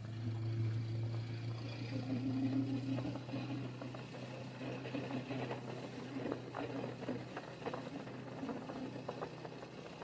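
Motorcycle engine running at a steady cruising pace, a low even drone that holds one pitch, with short clicks and knocks scattered through the second half.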